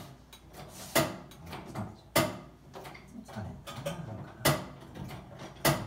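Cookware clattering and knocking as it is moved around in a low kitchen cupboard while a frying pan is fished out. There are four sharp knocks, a second or two apart, with lighter rattling between them.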